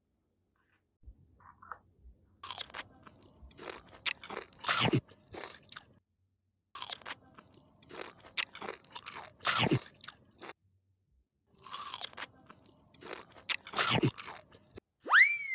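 Crunchy eating sounds, crisp bites and chewing, in three bouts of about three to four seconds each with short pauses between. A sliding whistle-like tone begins right at the end.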